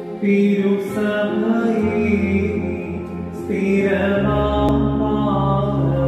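A solo voice singing a slow Mar Thoma liturgical chant in long held notes, over low sustained accompanying tones that come in about two seconds in and swell about four seconds in.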